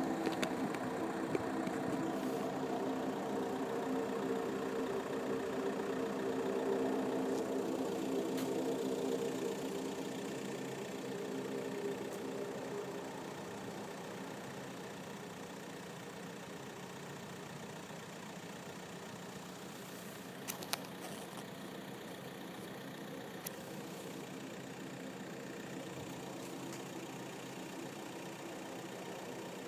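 A diesel engine running steadily in the background under a drone of several steady tones. The drone is loudest for roughly the first ten seconds, then fades, and its source is unidentified. Two or three sharp clicks come about two-thirds of the way through.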